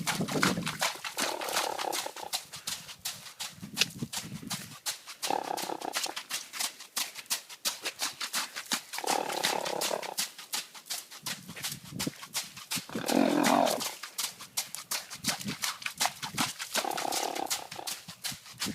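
A sleeping pet snoring, each snore pairing a lower-pitched sound with a higher-pitched one every few seconds. The loudest, rougher snore comes about two-thirds of the way through. A faint crackle of clicks runs underneath.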